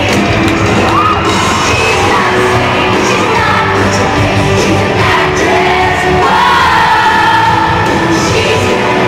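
Live pop-rock band playing through an arena sound system, a woman singing lead over drums, with fans yelling and whooping along.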